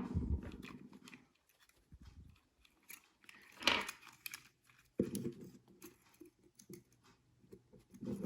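Handling noises from the small plastic parts of a video doorbell being worked on by hand: soft clicks, scrapes and rustles, with a louder scrape about three and a half seconds in and muffled handling rumble in the last few seconds.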